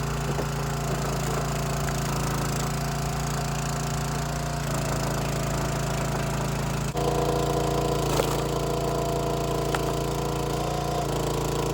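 Small gasoline engine of a 27-ton Dirty Hand Tools log splitter running steadily, its note shifting about seven seconds in.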